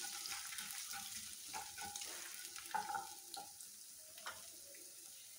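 Chopped ginger and mustard seeds sizzling in ghee and coconut oil in a nonstick kadai, with a wooden spatula stirring and knocking against the pan. The stirring stops after about three and a half seconds, and the sizzle grows fainter towards the end.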